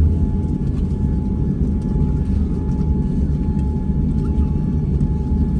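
Steady cabin noise inside a Boeing 787-9 airliner: a constant low rumble with a thin steady mid-pitched tone running through it.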